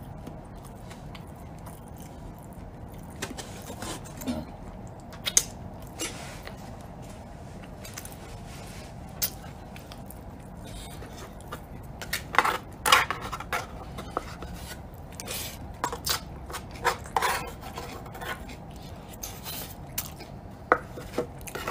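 A plastic spoon scraping and tapping against a disposable takeout food container while eating, in scattered short clicks and scrapes over a steady low room hum. The clicks cluster most thickly about 12 seconds in and again around 17 seconds.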